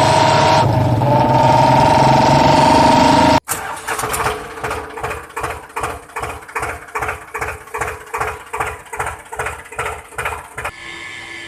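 A steady high whine cuts off suddenly, followed by an engine chugging in a slow rhythm of about two beats a second, which settles into a quieter, steadier hum near the end.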